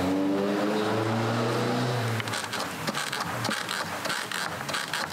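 A low motor drone with a steady pitch fills about the first two seconds, then stops. Light clicks and metallic taps follow from a screwdriver working at a spring hose clamp on an engine coolant hose.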